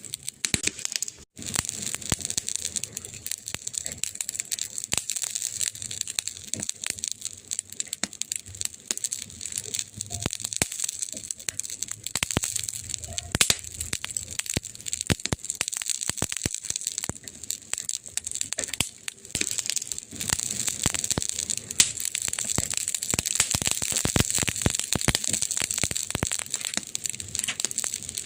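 Burning wood crackling: a dense, irregular run of small pops and snaps over a steady hiss, with a few louder pops in the middle and later part.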